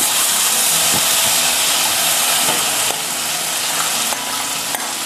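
Hot ghee sizzling in a kadai as mashed pumpkin and cowpeas are tipped in, a steady hiss that eases a little about three seconds in.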